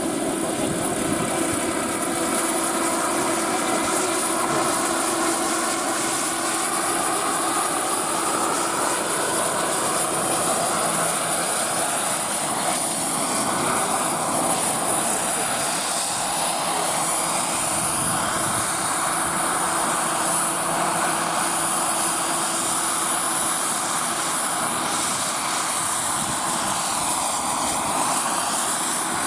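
Radio-controlled scale model helicopter flying, its engine and rotor tones drifting slowly up and down in pitch as it manoeuvres.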